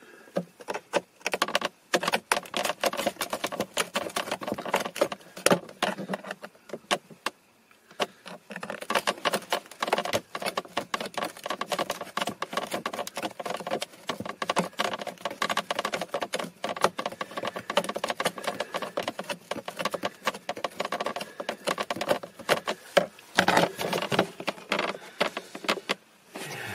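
A long screwdriver turning a screw at a glove-box hinge: a fast, dense run of clicks and rattles, with a short lull about seven seconds in.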